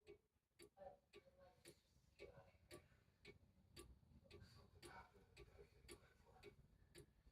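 Cuckoo clock ticking steadily and faintly, about two ticks a second.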